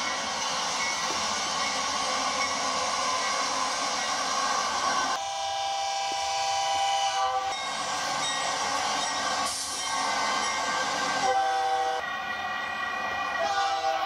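Diesel locomotive air horns blowing, heard through a television's speaker: a rushing train noise first, then a long multi-note horn blast about five seconds in and more horn blasts near the end.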